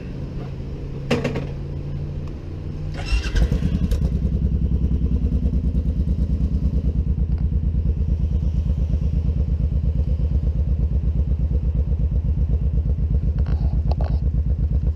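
Suzuki Boulevard cruiser motorcycle engine starting up about three seconds in with a short clatter, then idling with an even, pulsing beat. A quieter steady engine hum comes before it.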